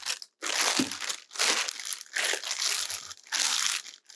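Clear plastic bag crinkling in several bursts as it is handled and pulled open around a folded tripod.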